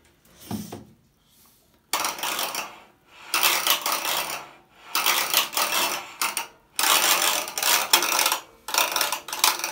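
Metal parts of a washing machine clattering and rattling as they are shaken by hand, in a run of bursts about a second long with short pauses, starting about two seconds in after a single soft knock.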